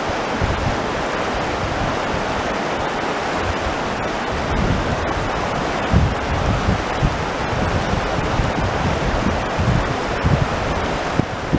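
Fast-flowing river rushing over its stony bed in a steady rush. From about four seconds in, wind buffets the microphone in irregular low gusts.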